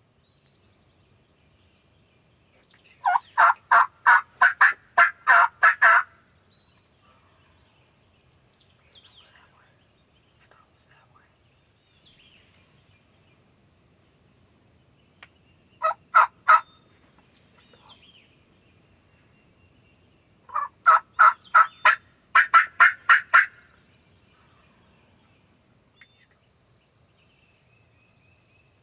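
Turkey yelping in three runs of evenly spaced yelps, about three a second. The first run of about nine yelps comes a few seconds in, a short run of three comes in the middle, and about eight more come near the end.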